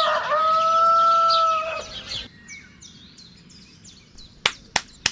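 A rooster crows: one long call held level, breaking off about two seconds in. Small birds chirp faintly after it, and a few sharp clicks come near the end.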